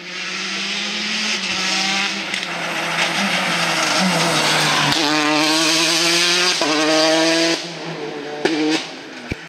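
Citroën DS3 R5 rally car's turbocharged four-cylinder engine driven hard at full throttle as the car comes past, its note climbing and stepping. The sound drops away about three-quarters of the way through, leaving a quieter engine with a few sharp cracks.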